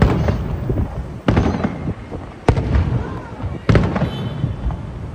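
Fireworks shells bursting in a display: four sharp booms roughly a second and a quarter apart, each trailing off in a low rumbling echo.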